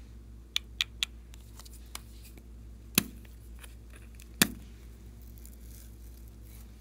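Scissors snipping: three quick snips close together, then two louder, sharper snips about a second and a half apart.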